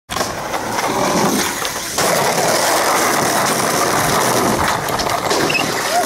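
Skateboard wheels rolling over pavement: a steady rolling noise with scattered clicks, getting abruptly louder about two seconds in.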